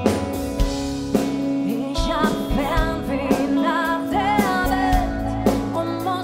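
Live pop-rock band playing, with drum kit hitting regularly under guitar and held chords. A woman sings lead in German from about two seconds in.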